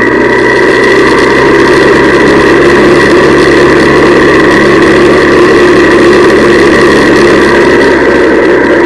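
Honda CL175's small air-cooled parallel-twin engine idling steadily.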